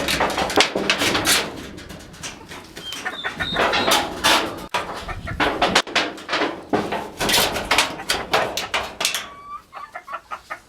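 Chickens clucking and giving short squawks among a busy run of rustling and thumping clatter, which fades toward the end.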